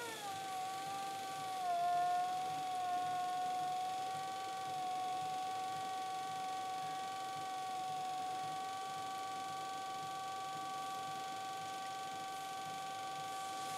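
Electric potter's wheel motor whining at a steady pitch as the wheel spins. Right at the start the whine jumps up in pitch and slides back down, as the wheel's speed changes, then holds level.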